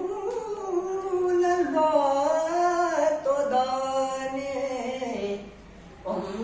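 A man singing a Persian devotional kalaam in a single voice, drawing out one long melismatic phrase whose pitch bends up and down. It breaks off about five seconds in for a short breath, and the next phrase starts near the end.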